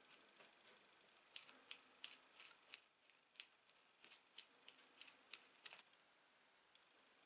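A thin stirring stick tapping and scraping on a piece of card while glue is mixed: about fifteen light, irregular clicks, stopping about six seconds in.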